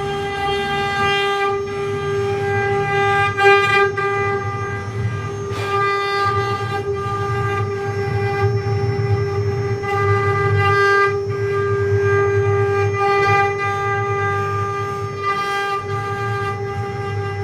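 CNC wood-carving router running: the spindle gives a steady high whine with even overtones, over a lower cutting noise that swells and fades as the bit works the wood.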